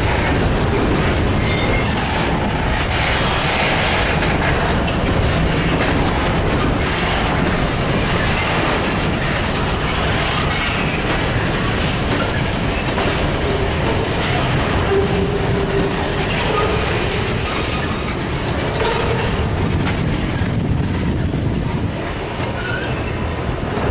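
Freight train of covered hopper cars rolling past close by. There is a steady rumble of steel wheels on rail with clicking over the rail joints. The wheels squeal briefly in the second half.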